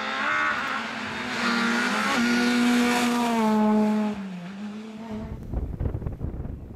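Rally car engine at full throttle, pitch climbing in steps with short breaks for gear changes, then falling away about four seconds in. About five seconds in it gives way to a gusty low rumble of wind on the microphone.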